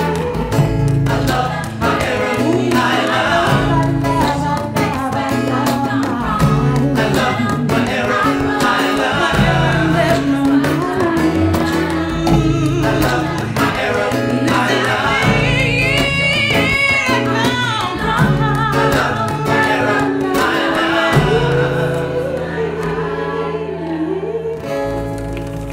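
A song performed live: several voices singing a melody over instrumental backing.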